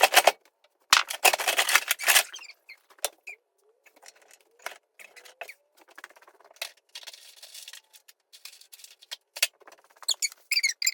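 Interior demolition work: a burst of rapid crackling and snapping, then scattered sharp clicks and knocks, with a few short squeaks near the end.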